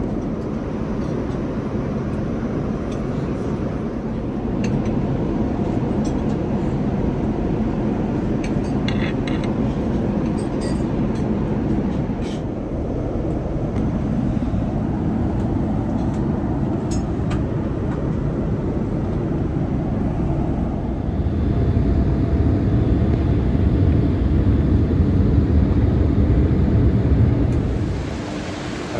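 Steady jet airliner cabin noise aboard a Boeing 787-10, a low rumble with a few faint clicks; the low rumble grows heavier for several seconds near the end.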